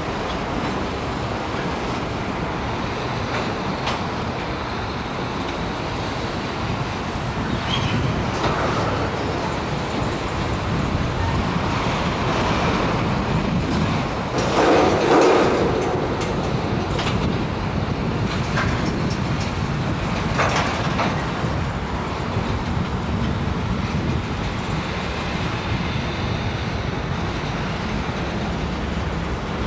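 Mixed freight cars rolling across a steel trestle: a steady rumble and clatter of wheels on rail. Sharp clanks come here and there, and there is a louder burst about halfway through.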